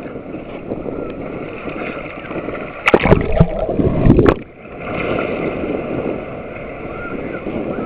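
Ocean surf breaking steadily on the beach. About three seconds in, a much louder rush lasts over a second and briefly overloads the microphone.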